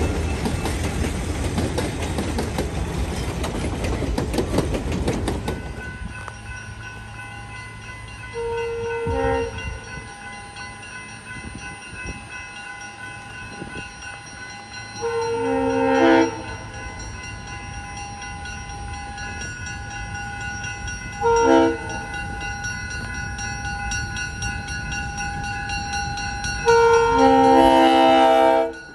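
Diesel passenger train's loud rumble for about the first five seconds, then the locomotive's multi-note air horn sounds four times: long, long, short, long, the grade-crossing signal, with the train running quietly underneath.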